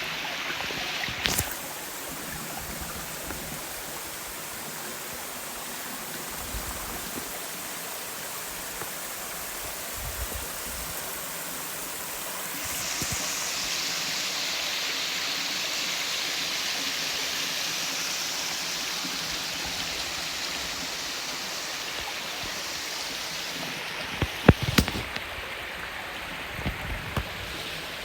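Clear mountain stream running over rocks, a steady rush of water that turns brighter and hissier about halfway through. A few sharp knocks cut in, one near the start and several close together near the end.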